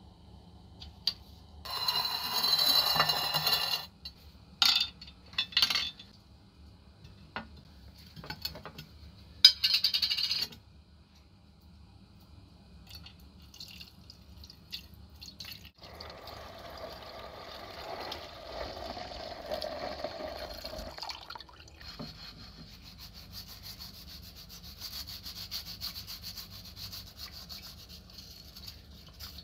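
Several short handling noises and clinks, then green cleaning liquid pouring into a glass baking dish over revolver grip panels for several seconds, stopping abruptly. After that, a grip panel is scrubbed with a scouring pad in the liquid, a steady rubbing.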